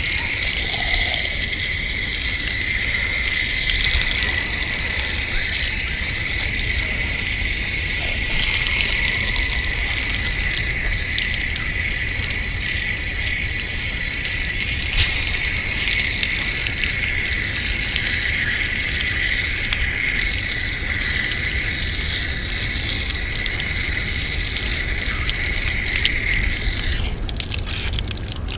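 Steady, shrill insect chorus holding one high pitch, which stops about a second and a half before the end. Splashing water from a garden tap follows.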